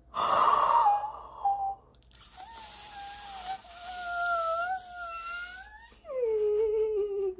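A woman's wordless, emotional wails, of someone overcome with excitement. First comes a breathy high cry that falls in pitch, then a long wavering wail, and near the end a lower moan sliding down.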